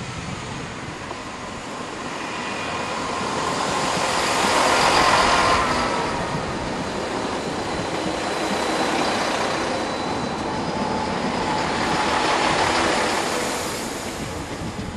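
First Great Western diesel multiple unit running past along the platform, its engines and wheels on the rails growing louder to a peak about five seconds in and staying loud as the carriages go by, with faint thin squealing tones over the top.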